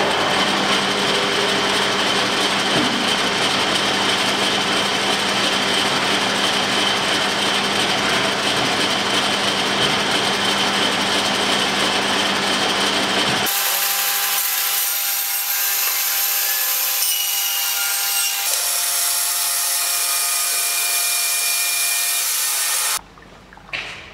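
Large bandsaw running and cutting through a thick wooden log: a loud, steady sawing noise with a high whine and a low hum. The sound changes abruptly twice, about 13 and 18 seconds in, and stops about a second before the end.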